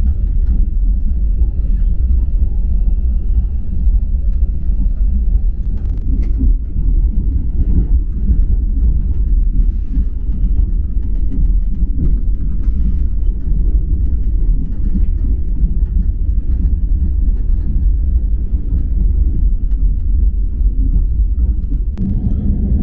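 Passenger train running, a steady low rumble of wheels on the track heard from inside the carriage, with a single click about six seconds in.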